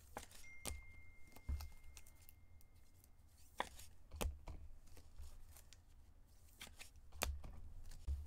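Trading cards and their packaging handled on a table: scattered light clicks, slides and rustles.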